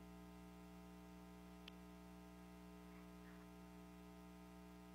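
Near silence: a faint, steady electrical hum with its overtones, and one faint click a little over a second and a half in.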